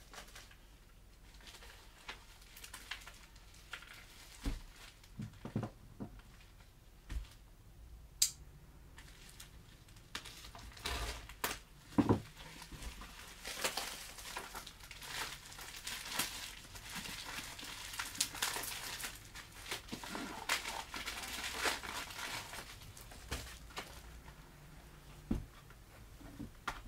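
Packaging being handled and crinkled as a cookware set is unboxed: plastic wrapping rustling and a cardboard box being turned over, with a few light knocks of things set down on the table. The crinkling is busiest in the middle.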